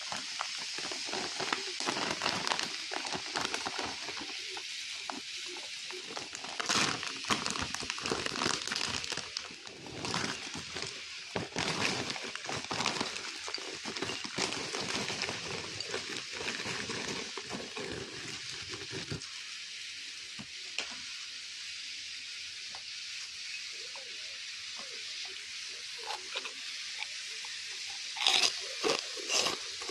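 Crinkling of a snack bag and crunching of fried peanut snacks, full of sharp crackles and clicks. The crackling thins to a faint hiss with scattered clicks after about two-thirds of the way through, then comes back louder near the end.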